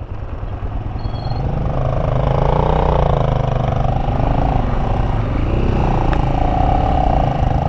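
Motorcycle engine running as the bike rides off, coming up about two seconds in, its pitch rising and falling with the throttle, over heavy low wind rumble on the microphone.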